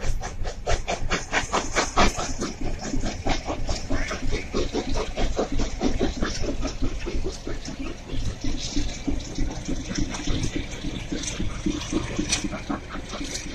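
LMS Jubilee-class steam locomotive Bahamas working hard under load, its exhaust beating out rapid chuffs about four or five a second that slowly grow fainter as the train draws away.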